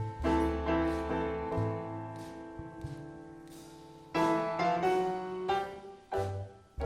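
Instrumental music: a piano playing slow chords that ring out and fade, with deep low notes beneath and fresh chords struck about four seconds in and again near the end.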